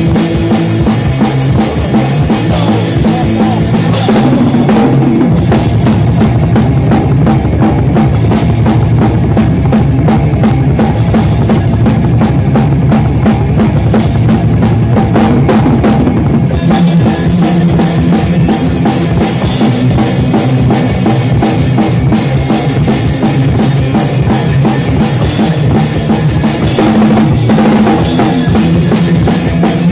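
Heavy metal band playing live, heard close to the drum kit: kick drum and snare keep up a driving beat under the band. The cymbals drop away for a stretch from about five seconds in and come back about sixteen seconds in.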